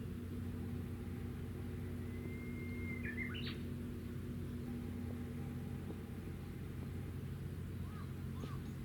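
Warship Kaga's engines running with a steady low hum made of several constant tones. A bird calls over it about two to three seconds in, a held whistle ending in a quick jumpy phrase, and a few short chirps come near the end.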